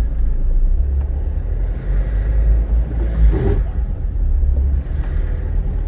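Dacia Logan on the move, heard from inside the cabin: a steady, deep drone of engine and road noise.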